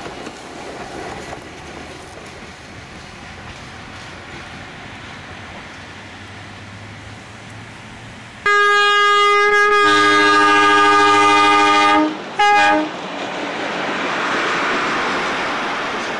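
Redhen diesel railcar running toward the listener with a low steady drone. It then sounds its horn: a long blast that changes chord about a second in, then a short toot. After that comes the rising and falling rush of the railcar passing close by.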